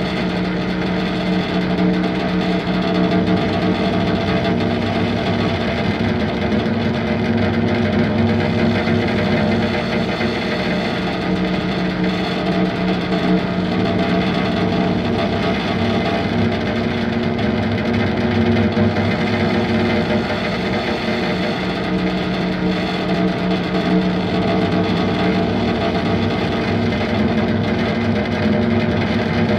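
Background music of steady droning tones with a distorted, effects-laden guitar-like sound.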